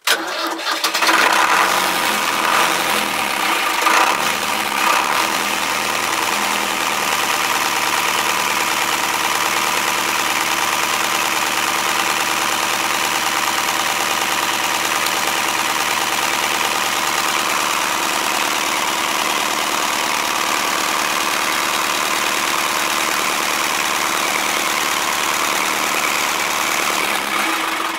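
Princess 33 Mk 1's port inboard engine started from cold at the button: it fires up at once, runs unevenly for the first few seconds, then settles into a steady idle.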